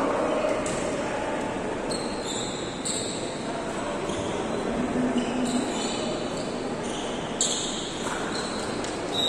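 Indoor volleyball game: a ball bouncing or being struck on the court and several short, high-pitched sneaker squeaks on the floor, over a steady hall background.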